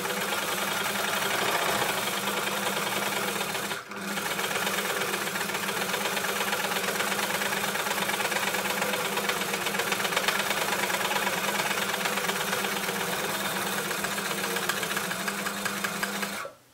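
Elna L4 four-thread overlocker (serger) running steadily at speed, stitching and trimming the edge of a fabric strip. It drops out for a moment about four seconds in, then runs on and stops suddenly near the end.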